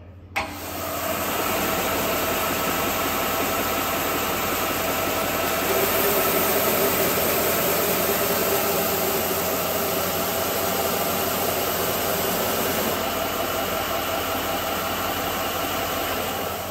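Proofy BSM-2000 edge sander: a switch click about half a second in, then the motor comes up to speed and the sanding belt runs steadily. From about 6 to 13 seconds a pine board is held against the belt and the sound grows a little louder as it sands. Near the end the sander is switched off and starts to run down.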